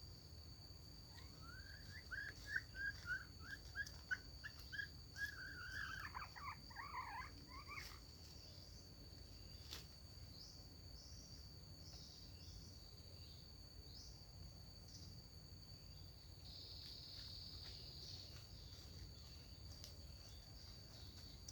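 A bird calls a quick run of short rising notes, about four a second, ending in a brief tumbling warble, over the steady high drone of crickets or cicadas.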